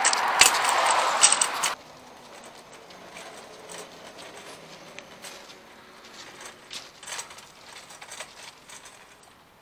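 Loaded metal shopping cart rattling loudly as it rolls over pavement, cutting off abruptly after a couple of seconds to quieter, occasional clicks and rattles of the cart.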